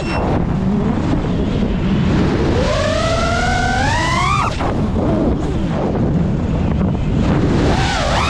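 Geprc Mark 5 five-inch FPV quadcopter's brushless motors and propellers whining, rising in pitch for about two seconds as the throttle comes up, then cut off sharply about four and a half seconds in. Underneath is steady wind and prop-wash rush on the onboard camera's microphone, and the whine climbs again near the end.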